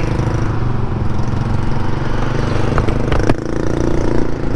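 Yamaha Majesty C big scooter's single-cylinder engine running steadily under way, close and loud, with an exhaust leak at the muffler that the rider says makes it noisy and needs tightening up. A few short clicks about three seconds in.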